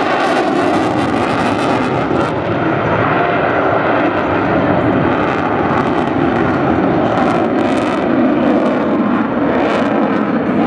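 Loud, steady jet engine noise from an F-22 Raptor's twin turbofans during its flying display.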